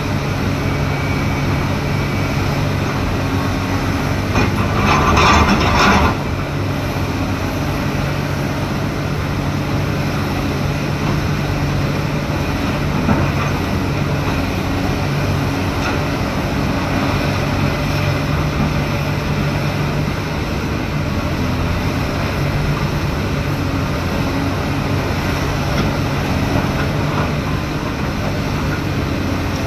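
Heavy excavator diesel engine running steadily under load, with a louder rough surge of noise lasting about two seconds, four seconds in.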